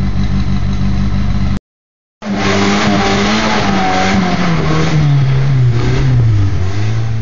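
Off-road rock buggy's engine running steadily, then, after the sound cuts out for about half a second, pulling hard up a rocky climb under throttle, its pitch sinking steadily as the load drags the revs down.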